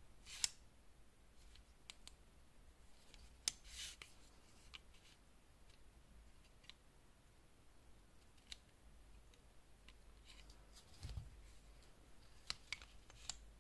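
Quiet, scattered clicks and taps of a plastic digital caliper being slid and closed against a metal watch case and handled, with a soft low bump about eleven seconds in.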